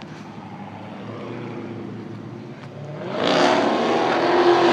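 A heavily modified Ford Mustang's engine running at low revs, then about three seconds in going to full throttle in a hard launch, suddenly much louder and staying loud.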